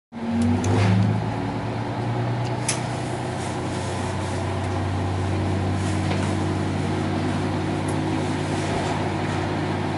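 Diesel railcar's engine running under power as the train pulls away, heard from inside the car: a steady low hum that is a little louder and shifts in pitch about a second in, then holds even, with a few faint clicks.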